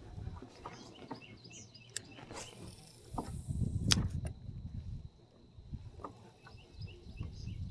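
Small birds chirping in quick short repeated notes, over low knocks and rustles from the kayak, with a brief swish and one sharp click about four seconds in.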